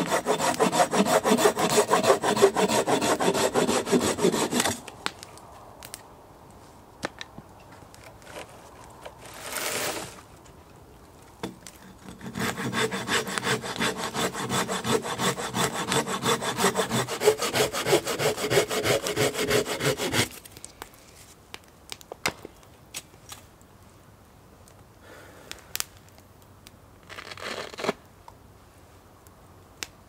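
Hand saw cutting wood in quick, steady back-and-forth strokes: one bout at the start that stops after about four seconds, and a longer one of about eight seconds in the middle. Short rustling scrapes come between and after them.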